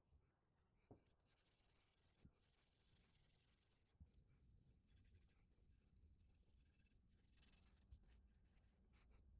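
Faint hand scrubbing of rust off cast lathe parts (tool rest and tailstock), a scratchy abrasive rasp that comes and goes in long strokes, with a few light knocks.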